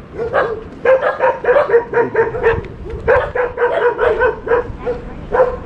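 A dog barking in rapid runs of short barks, about five a second, breaking off briefly about three seconds in before starting again.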